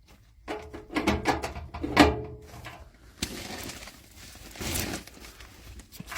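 Hands handling the parts of an AC unit: a quick series of clicks and knocks, then a couple of seconds of rustling.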